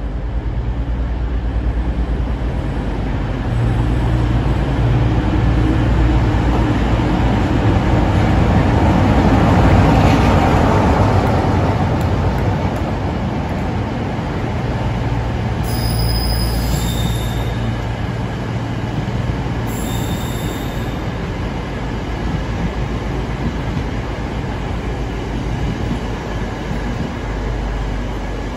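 Class 47 diesel locomotive 47749, its Sulzer V12 engine running, passes at speed and is loudest about ten seconds in. The train of new Stadler FLIRT multiple-unit carriages it is hauling then rolls by with a steady rumble, broken twice in the second half by brief high wheel squeals.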